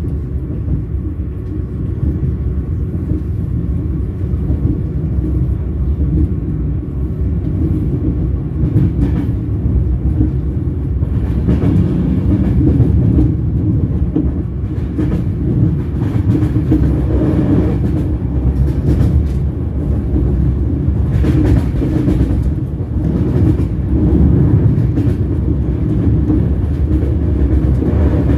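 Train wheels rolling on steel rails: a steady low rumble with scattered short, sharp clacks.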